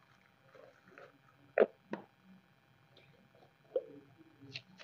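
Sharp clicks and knocks of small spice jars and their lids being handled and opened: two close together about one and a half seconds in, the loudest, and another near the end, with faint small knocks between.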